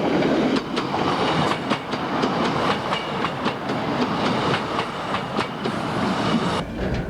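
Narrow gauge train running, its wheels clicking over the rail joints with a steady rumble underneath.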